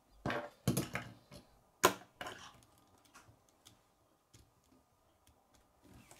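Plastic K'nex rods and connectors clicking and clattering as the assembled model is handled and lifted off a wooden table. Several sharp clicks and knocks come in the first two and a half seconds, then only a few faint ticks.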